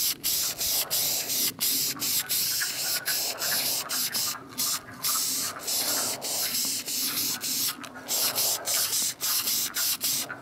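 Aerosol can of primer spraying in short hissing bursts, the nozzle pressed and released over and over, about one or two breaks a second.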